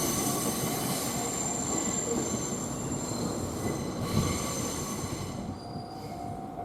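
Wheels of a shunting electric train squealing against the rails, a high squeal of several tones over the rumble of the wheels, fading out about five seconds in. A steady lower tone begins near the end.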